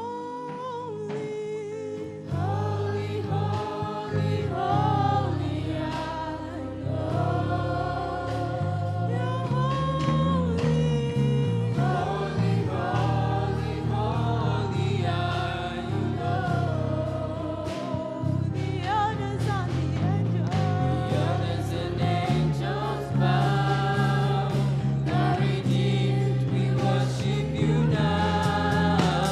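Gospel worship song: voices singing together over instrumental accompaniment with a steady bass line.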